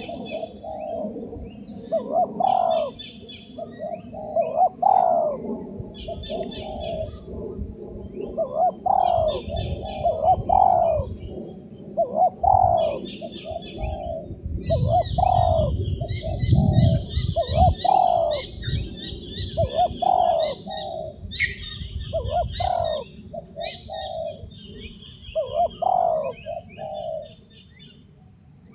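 Spotted doves (tekukur) cooing, a rhythmic cooing phrase repeating about every two seconds. Smaller birds chirp over it, and a steady high whine runs underneath.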